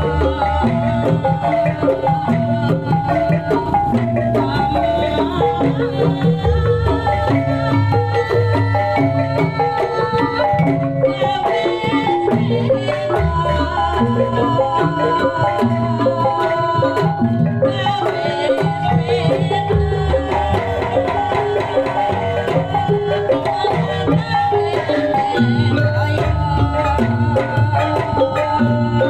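Kuda lumping gamelan music, loud and unbroken: hand drums (kendang) beat a steady pulse under tuned metal percussion playing repeating melodic patterns.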